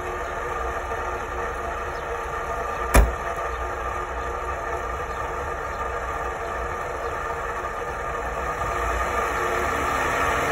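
Lada Niva engine running steadily at idle, a little louder near the end. One sharp thump about three seconds in as the car's door is shut.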